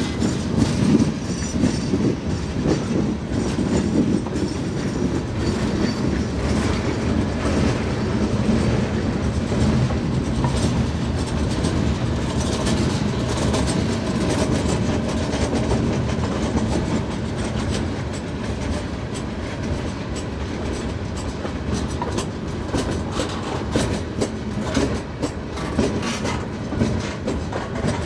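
A freight train of loaded gondola cars rolling past, steel wheels clicking and clattering over the rail joints over a steady rumble.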